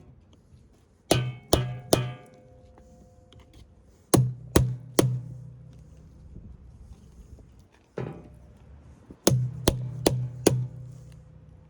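Hammer blows in quick sets of about three, each ringing briefly, struck while breaking apart a forklift battery.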